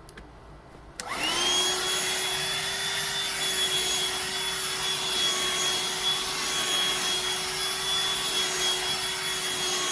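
Black & Decker 16-volt cordless handheld vacuum switched on with a click about a second in; its motor spins up with a short rising whine, then runs steadily with a high whine over a loud rush of air.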